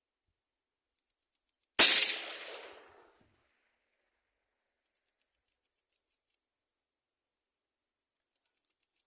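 A single rifle shot about two seconds in, a sharp crack with a short echoing tail, fired as a test shot while sighting in the scope.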